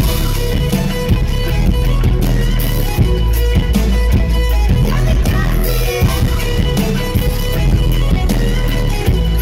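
Live electropop band music played loud over a festival PA, with heavy bass and a steady beat; a mostly instrumental stretch with little singing.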